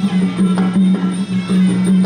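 Music with drum strokes over a steady held low note, the accompaniment playing during the fight.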